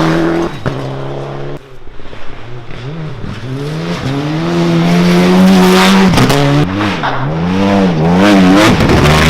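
Rally car engine at high revs. The pitch climbs, holds, then swings up and down several times in the second half as the driver lifts and gets back on the throttle.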